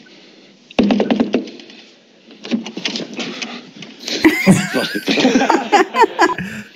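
People laughing: a short burst about a second in, then a longer, louder stretch of laughter and voices in the second half.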